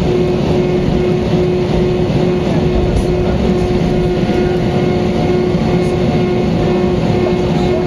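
Airbus A320neo cabin noise heard from a window seat: steady engine and rushing-air noise with a constant hum.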